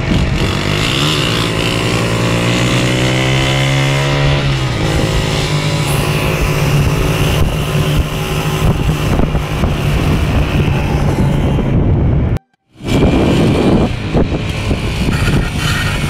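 Motorcycle engine running, its pitch climbing as it revs up over the first few seconds, then holding steady over a constant noisy rush. The sound cuts out abruptly for a moment about twelve and a half seconds in, and the engine sound resumes.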